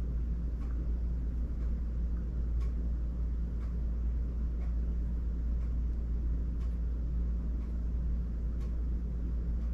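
Steady low rumble of room background noise with a faint hum, and faint ticks evenly spaced about once a second.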